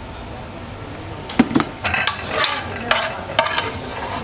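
Ceramic plates and a metal serving utensil clinking and scraping against a metal pan as pasta with mussels is served out. The first second or so is fairly quiet, then comes a run of sharp clinks.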